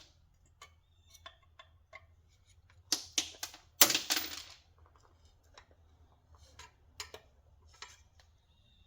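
Metal tool prying MOSFETs off a circuit board: scattered light clicks and ticks, with two louder scrapes about three and four seconds in.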